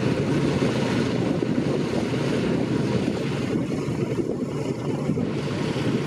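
Light aircraft's piston engine and propeller running steadily, heard under wind buffeting the microphone.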